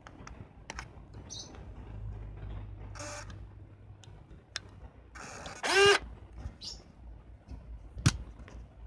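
Pentax Espio 140M compact zoom film camera's mechanism working: light clicks, a low motor hum for about two seconds, then a short loud motor whir that sweeps in pitch just before six seconds in, and a sharp click near the end.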